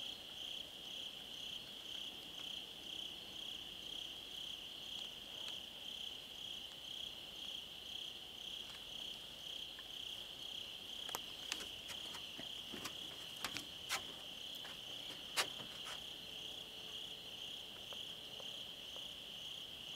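A steady chorus of night insects, chirping in a pulse about twice a second. A few short sharp clicks and rustles come in the second half, the loudest about three quarters of the way through.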